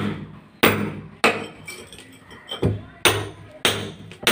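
Hand hammer striking a steel chisel held against a brick wall, chiselling out a hole. Sharp blows come about every two-thirds of a second, with a pause of just over a second in the middle.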